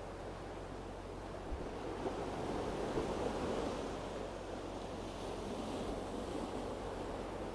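Sea waves washing onto the shore, swelling louder for a second or two midway, over a faint steady low hum.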